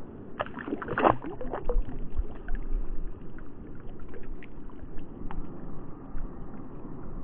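A brown trout splashing as it kicks free of the hand into shallow running water: a quick flurry of splashes from about half a second to two seconds in, then the light trickle of the stream with a few small drips.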